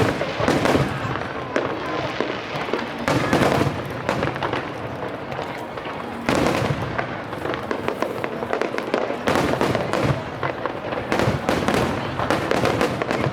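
Aerial fireworks going off in a rapid, continuous barrage of bangs and crackling, with louder clusters of bursts every second or two.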